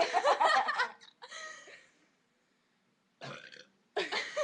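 A girl's burps: several in a row with short pauses between them, the first the loudest. The last one, near the end, comes out mixed with a laugh.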